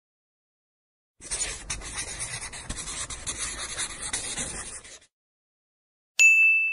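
Marker writing on a board, a scratchy rubbing in short strokes for about four seconds. Near the end a single bell ding rings out and slowly fades.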